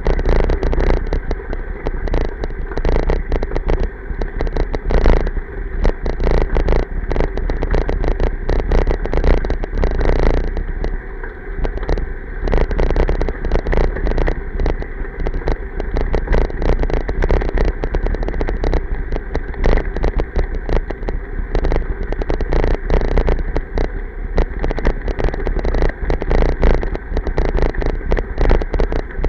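An e-bike rolls along a gravel path, its tyres crunching over loose stones and the bike rattling, in a dense, uneven rumbling noise.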